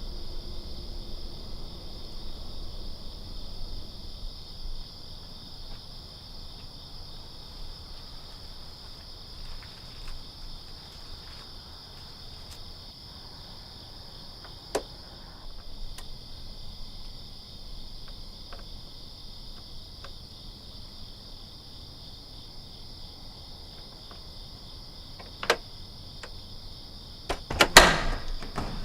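Crickets chirring steadily. There are occasional sharp clicks, and a louder cluster of knocks near the end.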